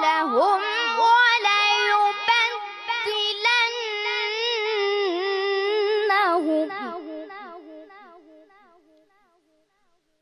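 Quran recitation in tajwid style: a high, solo voice holds a long, ornamented melodic phrase on the end of 'alladhi irtada' (An-Nur 24:55). The voice stops about six seconds in and its echo in the hall dies away over the next few seconds.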